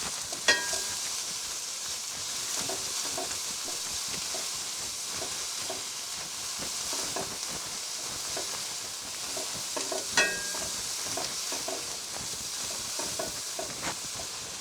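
Sliced onion, ginger and green chili sizzling steadily in hot oil as they are stirred and browned in a pan. A utensil scrapes through the pan, with two sharp metal clinks against it, one about half a second in and one about ten seconds in.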